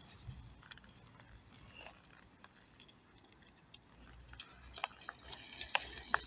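Faint clicking and rattling from a folding bicycle ridden across asphalt. It grows a little louder, with a few sharp clicks near the end as the bike passes close.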